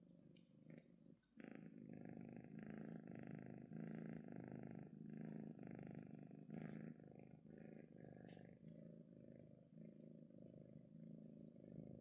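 Dilute calico cat purring while its chin and cheek are rubbed. The purr is steady and swells and eases in regular pulses with each breath, with a brief pause about a second in.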